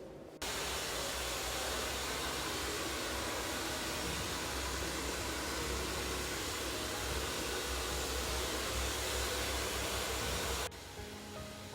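Hair dryer running with a steady blowing rush and low motor hum, starting abruptly about half a second in and cutting off abruptly near the end.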